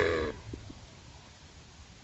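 The end of a cow's moo, its pitch falling, cuts off just after the start, followed by a lull of quiet barn background with a few faint knocks.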